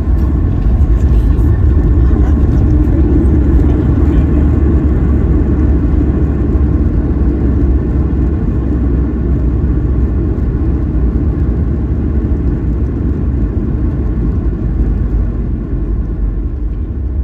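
Boeing 737-900ER cabin noise on the landing rollout: a loud, steady rumble from the engines and the wheels on the runway as the jet decelerates with its spoilers up. The noise eases gradually near the end as the aircraft slows.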